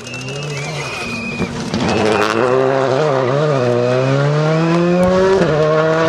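Škoda Fabia rally car's engine at full throttle, pitch climbing steadily through the revs, then dropping abruptly at an upshift about five and a half seconds in.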